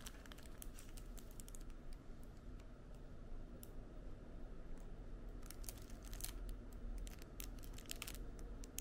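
Faint clicks and crinkles of a clear plastic sleeve and a plastic cake container being handled, as the sleeve is slid off. The clicks come in two clusters: during the first second or so, and again from about five and a half to eight seconds in.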